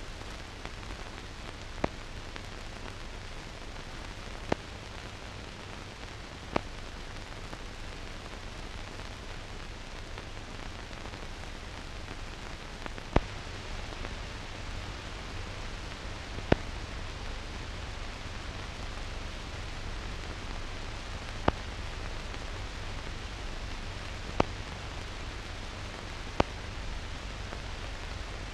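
Steady hiss with a low hum and about eight sharp, irregularly spaced clicks: the surface noise of a silent newsreel's blank soundtrack, with no programme sound on it.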